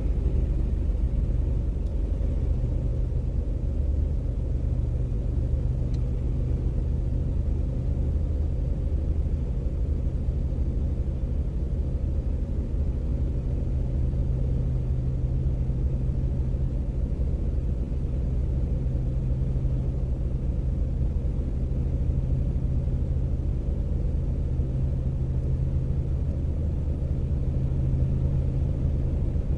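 Car engine idling steadily with a low, even rumble, holding the same pitch throughout.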